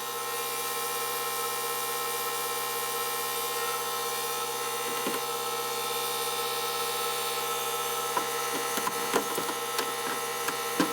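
A steady motor hum made of several fixed tones, with a series of light clicks and knocks of small metal parts being handled in the last few seconds.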